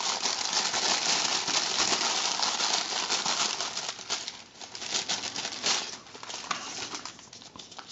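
Clear plastic bag crinkling steadily as a small plastic radio is pulled out of it, thinning after about four seconds to scattered light clicks and rustles as the plastic case is handled.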